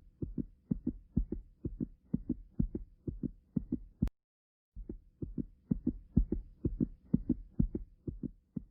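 Recorded human heartbeat: regular paired lub-dub thumps at a quick pace, broken off by a click and a short pause about halfway through before resuming.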